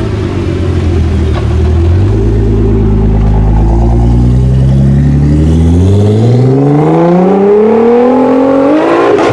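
Tuned 700 hp Nissan GT-R R35's twin-turbo V6 accelerating hard: low and fairly steady at first, then its pitch climbs steadily from about two seconds in until near the end.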